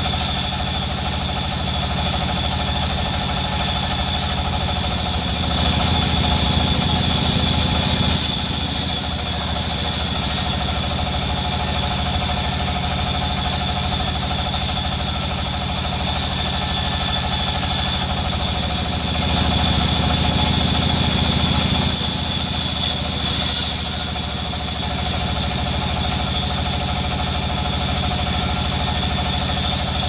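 Large vertical band saw running steadily as a red mahogany plank is fed through its blade. Twice, for a few seconds, the sound deepens and grows a little louder.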